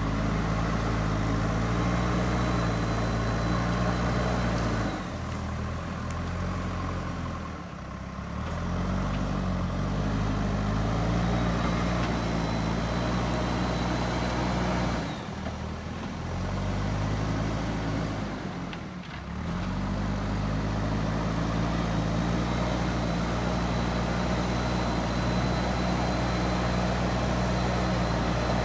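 JCB 3DX backhoe loader's diesel engine running under working load, its revs dropping twice and then rising again.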